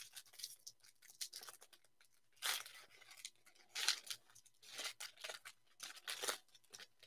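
Foil trading-card pack being torn open and its wrapper crinkled by hand, in a series of short crackling bursts, the loudest about two and a half, four and six seconds in.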